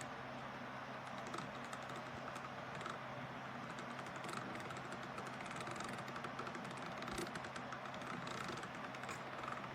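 Dense, irregular faint clicking and tapping over a steady low hum.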